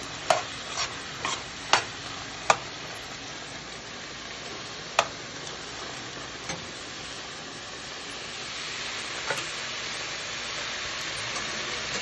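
Stew beef sizzling and bubbling in a pot as it cooks down to a thick gravy, with a spoon clicking against the pot several times in the first few seconds and once more about five seconds in. The sizzle grows a little louder near the end.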